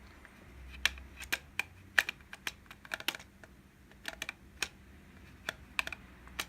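Irregular sharp clicks and taps of hard plastic toy parts being handled: a Kamen Rider Build Rocket Full Bottle and its toy weapon, about twenty clicks in uneven clusters.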